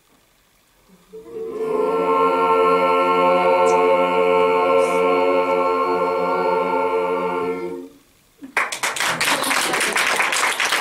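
Mixed a cappella vocal ensemble holding one long, steady final chord for about six seconds before it breaks off. Moments later applause breaks out.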